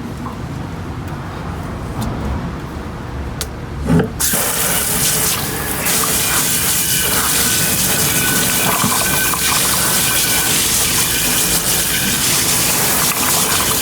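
Water from a sink hose spraying into a scoop coater to wash out leftover screen-printing emulsion. The spray gets much louder and fuller about four seconds in, just after a knock.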